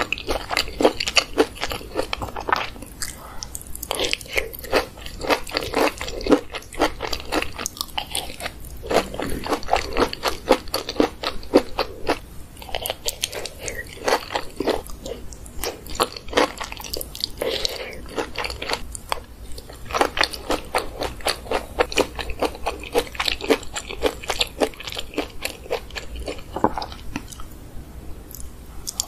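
Close-miked chewing of cheesy baked sweet corn, with a dense, continuous run of quick wet clicks and crunches as the kernels break between the teeth.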